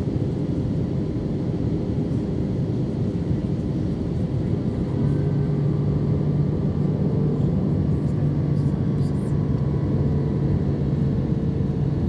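Airbus A319 cabin noise in descent: the steady roar of engines and airflow heard from a window seat over the wing. About five seconds in, a steady low hum joins in and the sound grows slightly louder.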